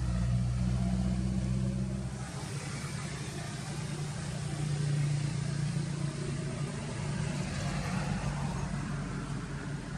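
An engine running steadily, its low hum changing pitch about two seconds in.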